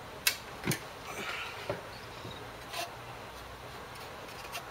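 Hands handling an opened CD player: a few sharp clicks and knocks with a short rustle, the two loudest clicks in the first second.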